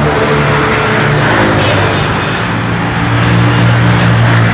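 Homemade mini truck's engine running steadily at idle, a low even hum.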